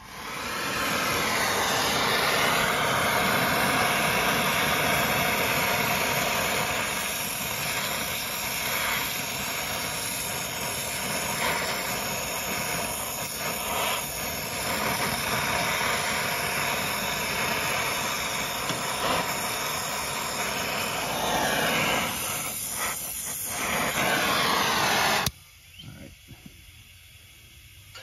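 Brazing torch flame hissing steadily as it heats a copper refrigerant line joint on a new service valve, then cutting off suddenly near the end.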